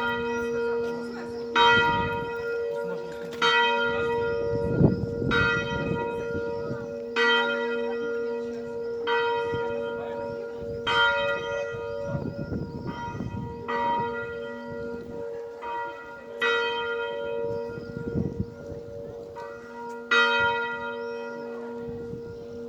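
Church bells ringing: several bells of different pitch struck one after another, a new stroke about every two seconds, over the steady hum of the lower bells.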